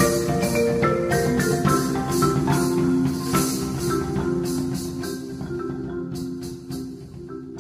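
Background music: short struck notes over held tones, with a steady percussive beat, getting gradually quieter in the second half.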